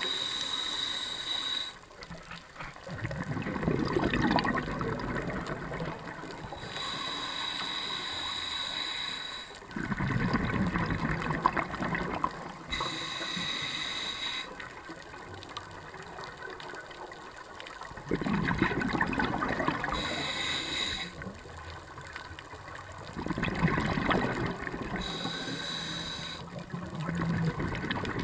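Scuba diver breathing through a regulator underwater: a hissing inhale through the demand valve alternates with a louder burble of exhaled bubbles, a breath every five or six seconds.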